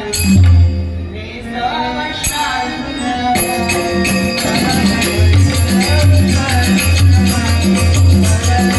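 Dashavatar folk-theatre accompaniment: a melody over a deep drum beating a steady rhythm that grows stronger about halfway through, with small percussion clashing on the beats.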